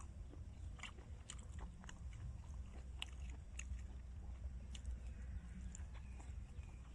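A person chewing and biting food close to the microphone: irregular short clicks and smacks, several a second at times, over a steady low rumble.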